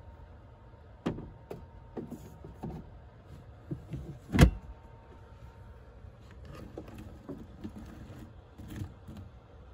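Light knocks and handling clatter, then the lid of a Dometic 12-volt chest fridge shuts with one loud knock about four and a half seconds in. Near the end, a spoon clinks faintly against a bowl.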